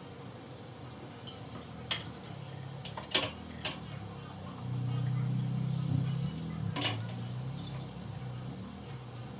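Chicken soup simmering in a pan, bubbles breaking with soft ticks and a few sharp pops. Under it runs a low hum that grows louder for a couple of seconds midway.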